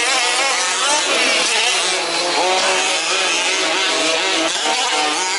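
Several 1/5-scale petrol RC off-road cars racing together, their small two-stroke engines revving up and down at different pitches so the whines overlap and waver.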